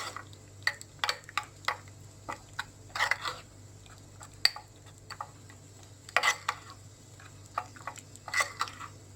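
A spoon stirring a thick yogurt and tahini mixture in a bowl, with short irregular scrapes and light clicks against the bowl.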